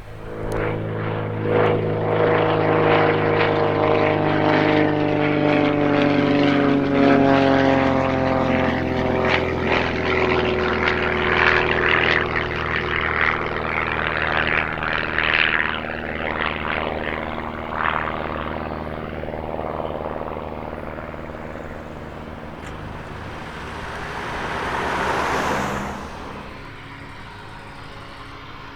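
Propeller-driven light aircraft passing close by, its engine and propeller tone falling in pitch as it goes past, then fading away. A brief rushing swell rises near the end and cuts off suddenly.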